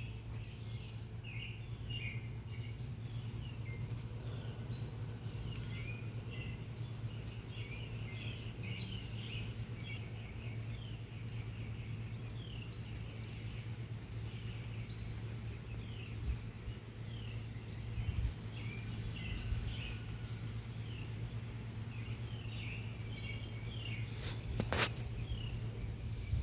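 Small birds chirping in many short, rapid calls over a steady low hum, with a sharp click near the end.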